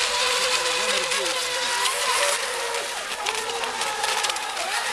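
Radio-controlled racing boats running flat out, a steady high motor whine with shorter whines rising and falling below it, over a constant hiss of spray.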